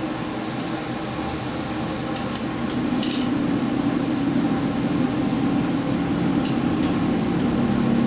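Cab-end running noise of a diesel limited-express train drawing into a station and stopping: a steady low hum that grows louder partway through, with a few short sharp clicks.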